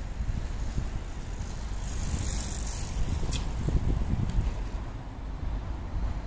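Wind rumbling on the microphone outdoors, with a brief hiss and a single click about three seconds in.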